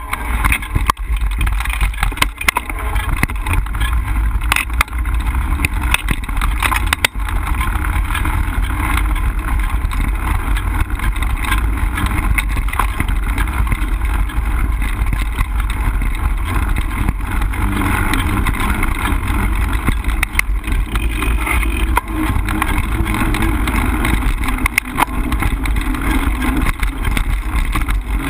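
Mountain bike ridden along a dirt singletrack, heard from a camera mounted on the bike: a steady loud rumble of tyres and wind on the microphone, with frequent sharp clicks and rattles as the bike jolts over the trail.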